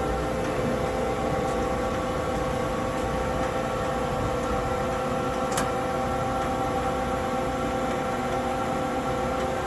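Blanchard Model 18 rotary surface grinder running with its 18-inch wheel and 36-inch magnetic chuck: a steady machine hum holding several even tones, with one light click about five and a half seconds in.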